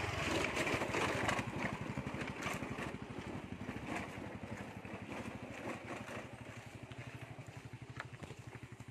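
Motorcycle engine running with an even, rapid low pulsing that gradually gets quieter.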